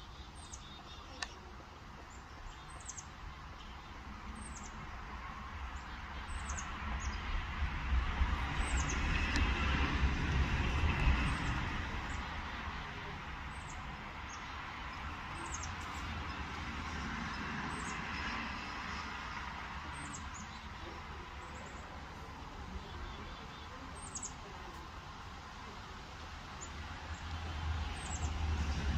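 A bird calling over and over with short, high chirps that slide downward, about one every second and a half. Underneath, a low vehicle rumble swells between about five and twelve seconds in, then builds again near the end.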